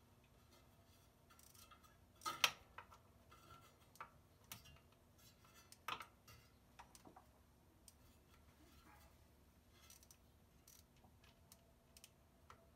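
Faint, irregular clicks and taps of a socket wrench working a bolt in a cramped spot, with the loudest clack about two and a half seconds in and another near six seconds.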